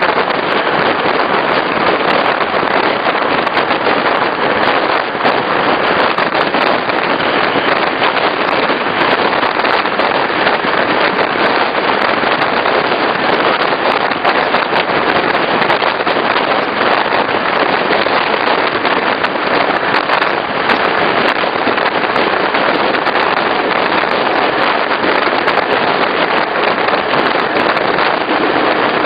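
A regional passenger train running along the line, heard as a steady, loud rushing noise with dense, constant crackling.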